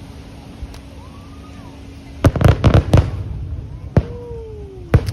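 Fireworks display: a quick cluster of about five sharp bangs from bursting aerial shells about two seconds in, then two more single bangs about a second apart near the end.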